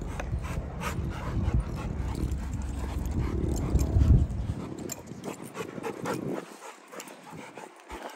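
Dogs at play over a Jolly Ball, panting, with a low rumbling noise that peaks about four seconds in and then drops away; the second half is quieter, with a few light clicks.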